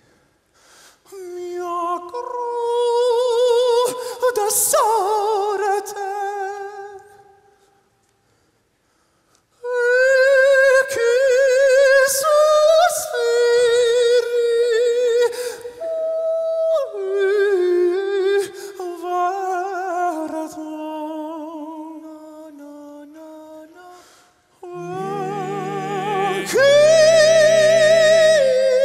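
Wordless a cappella singing by high male voices with strong vibrato, holding long notes and sliding between them. There is a pause of about two seconds about a third of the way in. Near the end, low bass voices come in underneath in harmony.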